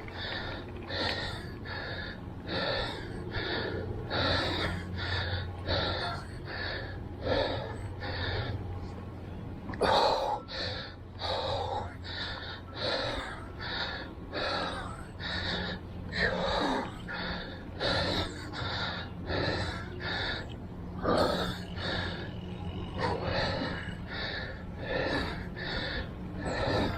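A man panting hard, quick regular breaths about three every two seconds, out of breath from long uphill pedalling on a mountain bike.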